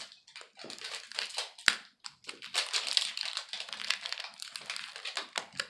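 Plastic toy packaging crinkling and rustling as it is torn open, with one sharp click about a second and a half in.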